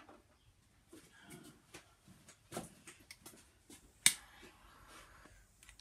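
Small handling clicks, then a sharp click about four seconds in followed by roughly a second of steady hiss: a small butane torch being sparked and fired briefly to pop bubbles in freshly poured epoxy resin. It clicks again right at the end.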